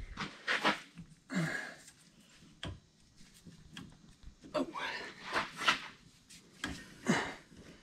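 Scattered knocks, clicks and scrapes of hands and tools fitting a leaf-spring shackle and bushing on a van's rear suspension.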